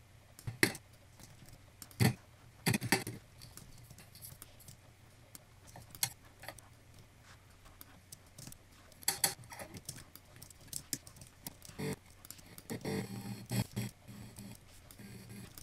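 Irregular clicks and taps from a computer mouse and keyboard, with a few sharper knocks among them.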